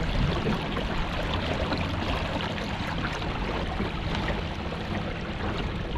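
Electric kayak trolling motor running with a steady low hum over a continuous wash of water noise, with rain falling on the lake.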